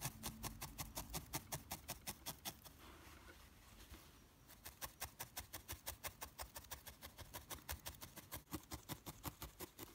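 Felting needle stabbing repeatedly through carded wool into a foam pad: a faint, quick tapping of about six strokes a second, with a short pause about three seconds in.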